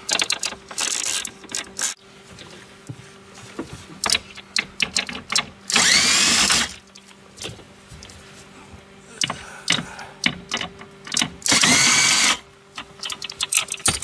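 Power driver spinning screws out of the plastic dash panel: two bursts of about a second each, about six and twelve seconds in, with clicks and rattles of the tool and trim between them. A faint steady hum runs underneath.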